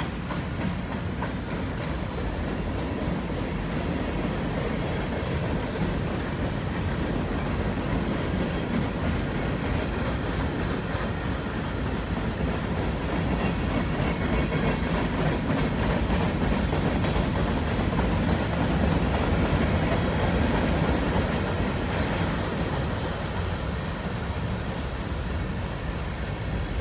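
Freight cars of a long mixed manifest train rolling past: a steady rumble of steel wheels on rail with repeated clicks as wheels cross rail joints, swelling a little past the middle.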